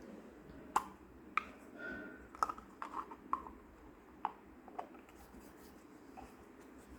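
Small hard miniature toy pieces clicking and tapping as they are handled and set down: about eight light, irregular clicks, some with a short ring, bunched in the first five seconds.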